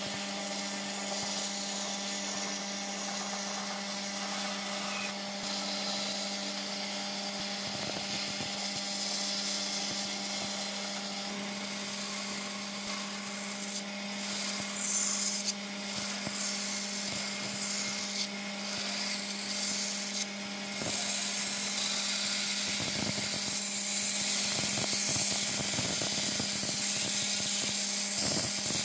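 Bandsaw running with a steady motor hum while its blade cuts a small wooden block into thin slices. The cutting hiss comes and goes with each pass and gets louder about two-thirds of the way through.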